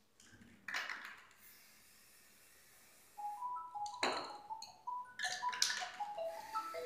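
Aerosol spray-paint can hissing through a stencil: a burst about a second in that fades to a faint steady hiss. About three seconds in, light marimba-like music starts, with more short spray hisses under it.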